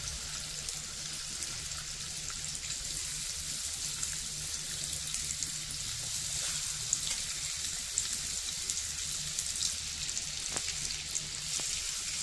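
Chicken seekh kebabs sizzling in shallow hot oil in a frying pan as more are laid in, a steady high sizzle with scattered small pops that grows slightly louder.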